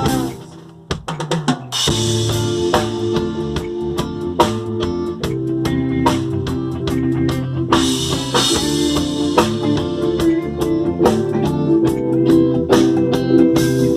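Instrumental break of a band song: drum kit, bass and guitar playing with no vocals. The band drops almost out just after the start, with a few isolated drum hits, then comes back in full about two seconds in.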